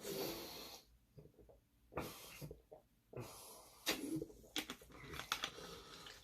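A person eating close to the microphone: a breath at the start, then soft wet mouth clicks and smacks of chewing, scattered between short pauses.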